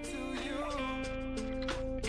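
Background music: an instrumental passage of a song with held chords and a few sharp strikes.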